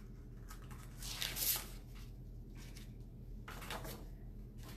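Faint rustling scrapes of an adhesive chalk-transfer stencil sheet being handled and pressed against fabric to 'fuzz' it: three brief strokes, the first about a second in and the loudest.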